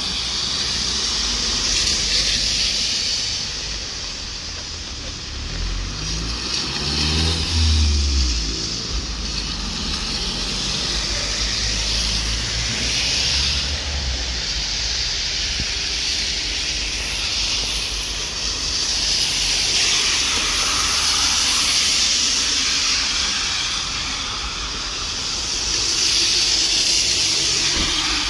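Cars passing on a rain-soaked street, their tyres hissing on the wet road as each swells and fades, several in turn. Around seven to nine seconds in, a low engine passes with its pitch shifting.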